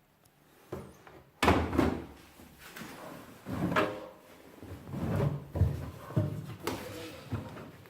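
Candy washing machine running a cotton wash: a string of irregular thuds with a low hum, as the drum turns and the wet laundry drops inside it.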